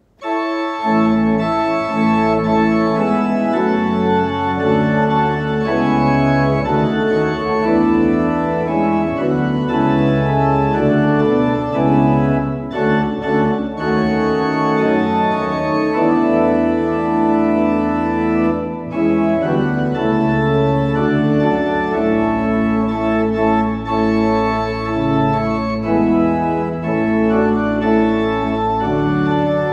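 Three-manual church organ playing sustained chords with deep pedal bass, a slow hymn-like piece entering with a full chord just after a moment's silence.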